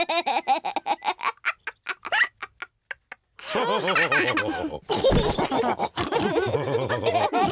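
Cartoon pig characters laughing. A run of short laughs trails off over the first two seconds, then there is a brief pause, and several voices laugh together from about three and a half seconds in.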